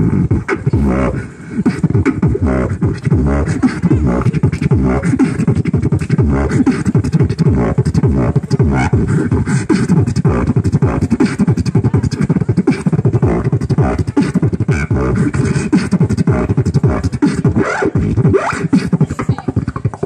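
Beatboxing into a microphone, amplified through a small speaker: a fast, continuous run of bass-heavy kick thumps and sharp snare clicks.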